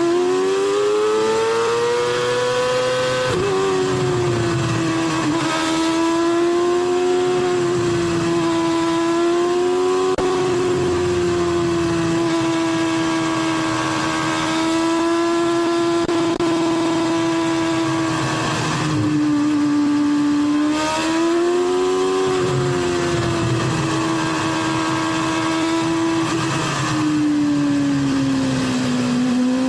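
McLaren-Mercedes Formula One car's engine heard from onboard, running at high revs. Its note mostly holds steady, then rises and drops sharply several times as the driver shifts gear and lifts for corners.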